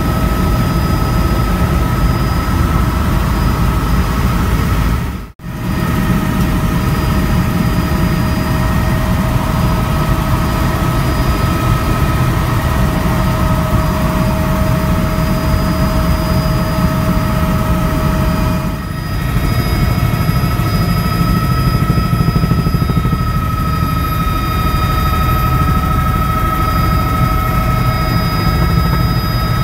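Cabin noise of a Bell 206 JetRanger helicopter in descent: a steady Allison 250 turboshaft whine over a dense low rotor and engine rumble. The sound cuts out for an instant about five seconds in, and the whine shifts in pitch about two-thirds of the way through.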